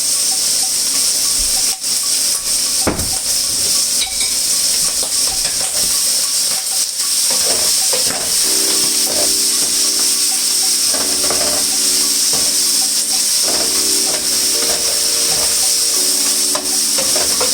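Tofu and mushrooms sizzling in a frying pan as they are stirred, with a steady hiss and scattered clicks and scrapes of the utensil against the pan. Background music with held notes comes in about halfway through.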